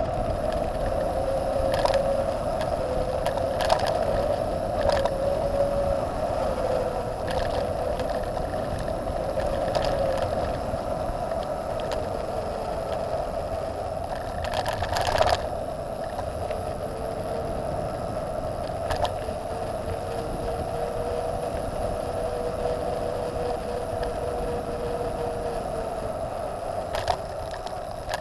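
Trek Top Fuel 9.8 full-suspension mountain bike coasting downhill on a paved and gravel lane: steady rolling noise with a buzz whose pitch drifts slowly with speed. A few sharp knocks from bumps are heard, the loudest about halfway through.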